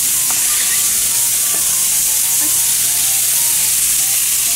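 Marinated sliced beef sizzling steadily in hot oil with sliced garlic and chili in a frying pan, while being stirred with chopsticks.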